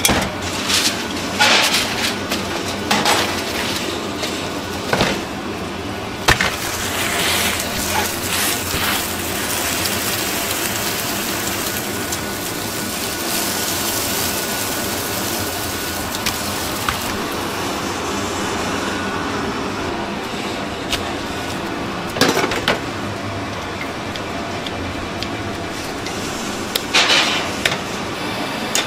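Kitchen work noise over a steady background rumble: intermittent knocks and clatter of metal cookware, a cast-iron grill pan and lid being handled, and crinkling aluminium foil around roast chicken.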